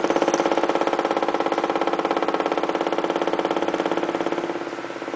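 Green desktop stapler rattling against its wooden shelf in a rapid, even buzzing clatter, shaken into resonance by the vibration of a running fan. It holds steady, then dies away near the end.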